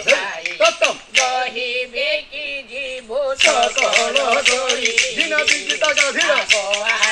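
A man sings in a wavering, held voice over rapid clacking of the wooden clappers (kathi) of a dashkathia performance. The clacking grows dense and fast from about three and a half seconds in.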